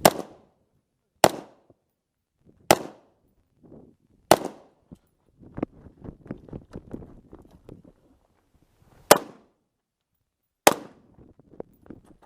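Custom Colt AR-15 rifle firing six single shots, the first four about one and a half seconds apart, then a gap of several seconds filled with faint rustling and clicking before two more shots.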